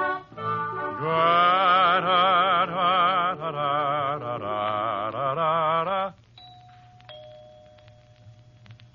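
Radio-drama music cue: a few short notes, then a held chord with a wavering, vibrato melody on top, which cuts off sharply about six seconds in and leaves only a faint steady hum.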